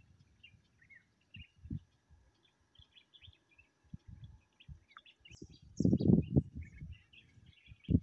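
Small birds chirping repeatedly in short high notes in the background, with soft low rustling and thumping that grows loudest in a cluster about six seconds in.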